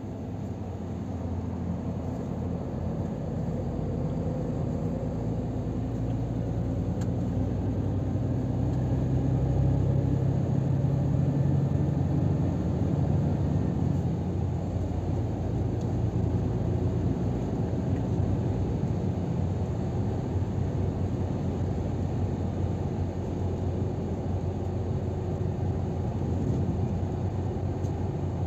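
Scania R500 truck's diesel engine and tyre noise heard inside the cab: a low, steady engine drone that grows louder over the first ten seconds as the truck gathers speed, then settles into an even cruise.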